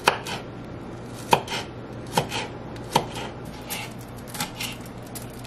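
Kitchen knife chopping green onions on a wooden cutting board: irregular knocks of the blade hitting the board. A few strong strokes come in the first three seconds, then lighter, quicker taps.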